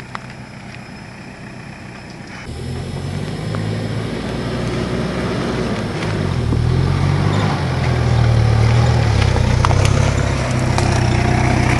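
Toyota Land Cruiser 70-series diesel engine pulling at low speed as the truck crawls over loose landslide soil, growing louder as it comes closer, its pitch rising and dipping with the throttle. The engine comes in suddenly about two seconds in, after a quieter opening.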